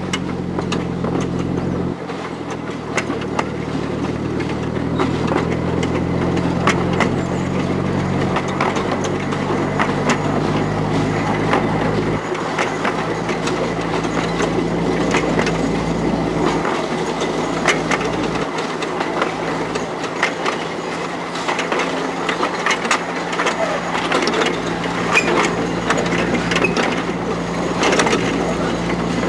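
A 15-inch gauge miniature railway train running, heard from an open passenger coach: wheels clicking and rattling over the rails, with a steady engine hum from the locomotive ahead that changes pitch a few times.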